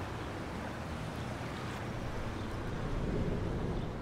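Steady low rumble with a soft hiss of outdoor street ambience, swelling a little about three seconds in.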